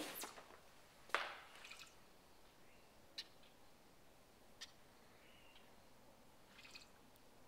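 Near silence: a sharp click about a second in, then a few faint ticks and a couple of faint, short bird chirps.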